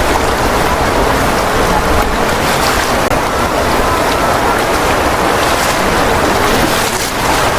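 Waterfall water rushing, a loud steady noise.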